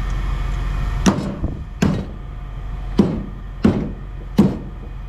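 Pieces of scrap metal being tossed down one at a time: five sharp clanks with a brief ring after each, roughly a second apart.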